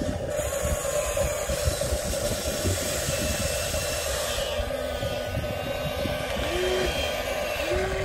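Electric motors and gearboxes of a Huina 1593 RC excavator whining steadily as it dumps its bucket and swings the boom back to dig. Near the end the motor pitch briefly rises and falls twice.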